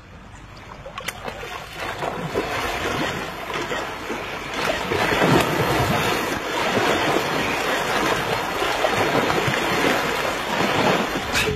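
Rushing wind and water noise with no engine note, growing over the first two seconds and then holding steady with gusty swells.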